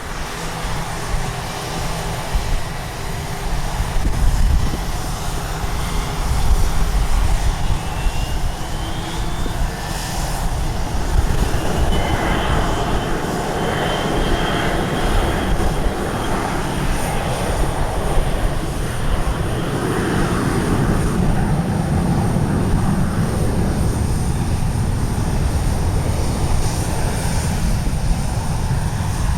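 Jet aircraft engines, growing louder from about six seconds in and staying loud, with a faint gliding whine. Low wind rumble on the microphone runs underneath.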